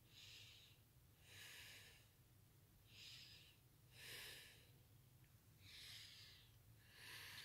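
Six faint breaths close to the microphone, about one every second and a half, each a soft hissy puff.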